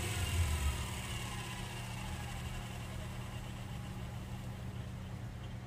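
Restored 1920s Master Electric 1 hp repulsion-start induction-run motor spinning down after being switched off, its whir falling slowly in pitch and fading as it coasts.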